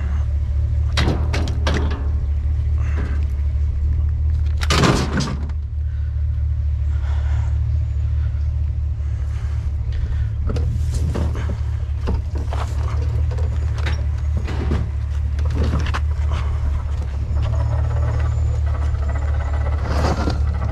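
Truck engine rumbling low and steady, with scattered knocks and clatters, the loudest about five seconds in.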